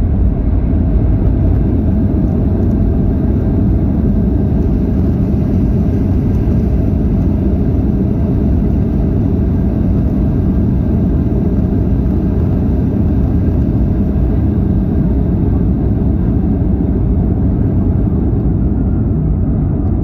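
Steady low rumble of a Ryanair Boeing 737 heard from inside the cabin as it rolls along the runway after touchdown: engine noise and tyres on the runway, with a faint steady hum above it.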